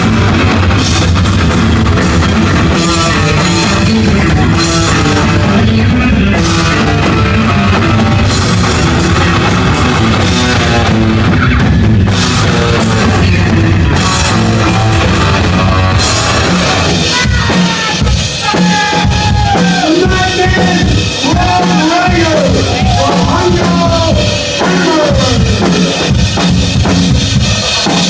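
Heavy metal band playing live and loud: distorted guitar, bass and drum kit. A little past halfway the dense chords drop away, leaving choppy drum hits under gliding, bending high notes.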